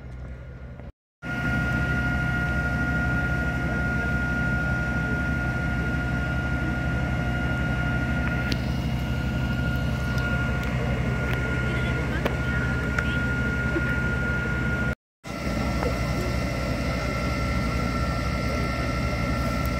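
Fire engine's engine and built-in water pump running steadily while it feeds a hose line, a high steady whine over a low drone. The sound cuts off twice for a moment, about a second in and near 15 seconds.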